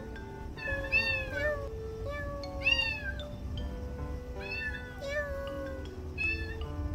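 Black-and-white kitten meowing insistently, about four separate calls that each rise and fall in pitch, the loudest near the middle. Soft background music plays underneath.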